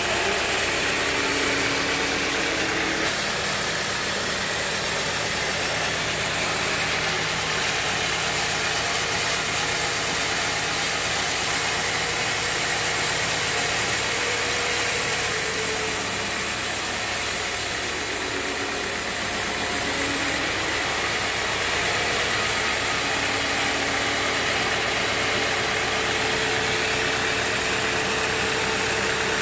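Sawmill band saw and its motor running steadily, a dense, even machine noise with a faint hum that shifts in pitch a few times.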